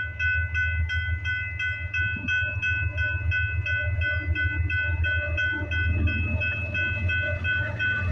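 Railway crossing warning bell ringing rapidly, about three to four strikes a second, over the steady low rumble of a slow-moving CPKC freight train passing.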